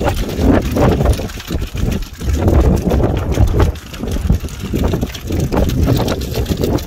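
Wind buffeting the microphone: a loud, uneven low rumble that swells and drops in gusts.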